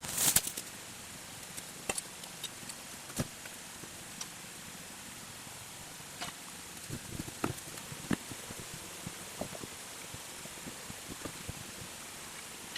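A steady hiss with scattered short knocks and clicks, the loudest a sharp click right at the start.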